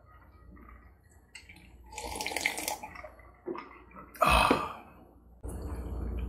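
Close-up wet mouth sounds of drinking and eating: sipping and swallowing from a glass and chewing food, in short loud bursts about two, four and five and a half seconds in.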